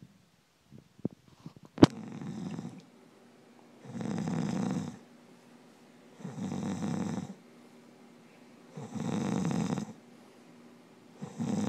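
A man snoring in slow, regular snores, about one every two and a half seconds, five in all. A sharp click, the loudest sound, comes just before the first snore.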